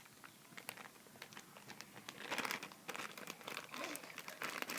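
Faint crinkling and scattered small clicks of things being handled, with a brief louder rustle a little over two seconds in.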